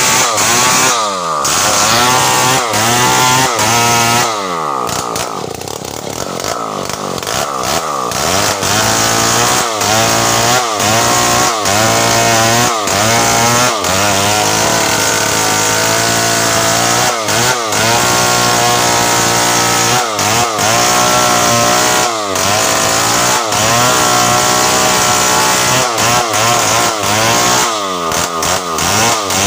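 Two-stroke chainsaw cutting through the base of a tree trunk at high revs. Its pitch keeps dipping and rising again as the chain bites into the wood and frees. About four seconds in, the note drops lower and softer for a few seconds before it runs back up.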